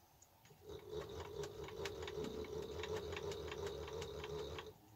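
Small bench milling machine's spindle motor running with a steady whine, a low hum and a rapid regular clicking of about five a second. It starts about half a second in and cuts off suddenly near the end.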